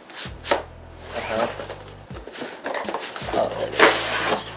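Cardboard rustling and scraping as the inner tray of a fishing-rod box is slid out of its outer cardboard sleeve. There are a few short scrapes, then a longer, louder scrape about four seconds in.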